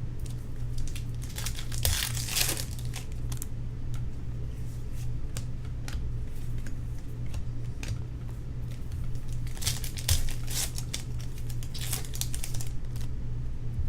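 Foil trading-card pack wrappers crinkling as packs are torn open and handled, in two spells of crackling about two seconds in and again from about nine and a half to twelve and a half seconds, over a steady low hum.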